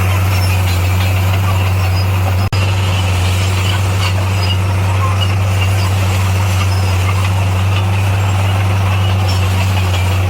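Heavy diesel engine of a Komatsu D58P bulldozer running steadily under work, a constant low drone, with a brief dropout about two and a half seconds in.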